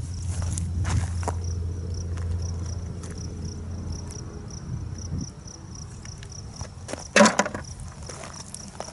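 Crickets chirping in an even, rapid pulse, over a low rumble that stops about five seconds in. A brief loud clatter comes about seven seconds in.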